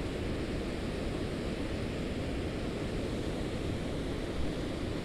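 Steady rush of river water pouring over a spillway and churning below it, an even roar without breaks.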